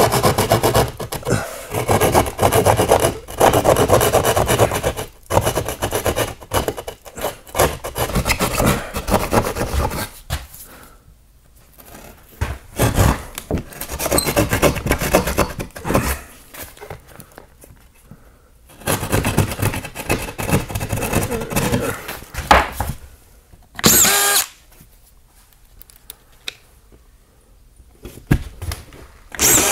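Drywall jab saw sawing through sheetrock in quick back-and-forth strokes, in several spells with short pauses between them. Near the end come two short runs of a cordless drywall screw gun driving screws.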